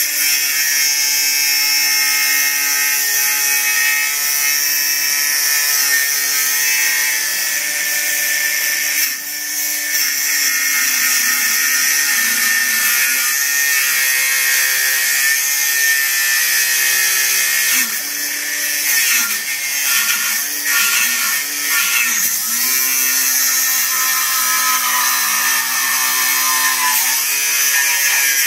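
Milwaukee M18 cordless 4½-inch angle grinder (2680-20) cutting through half-inch rebar with an abrasive wheel: a steady high whine with a grinding hiss. The pitch sags and recovers several times as the motor bogs under pressure, most in the second half. It is fed gently, since pushing harder trips its overload cut-out, so the cut goes slowly.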